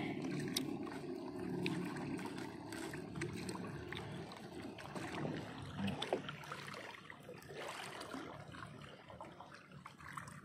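A low, steady motor hum that fades over the second half, with scattered light clicks and some water sounds.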